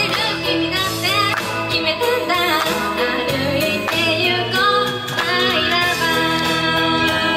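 A young woman singing a J-pop idol song live into a handheld microphone over a pop backing track with a steady bass line.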